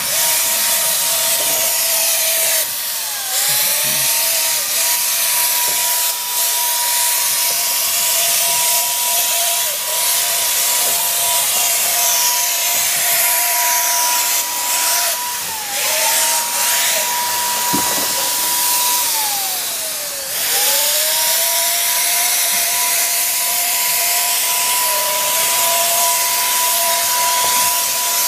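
Wagner Flexio 2000 handheld paint sprayer running while spraying, a steady high turbine whine over a rushing hiss of air and paint. The pitch sags briefly a few times, most deeply a little past two-thirds of the way through, and comes back up.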